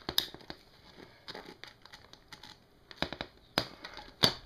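Glued plastic power-supply case cracking and creaking under a squeezing clamp: a run of sharp, irregular cracks and clicks as the glued seam is forced apart, the loudest one near the end.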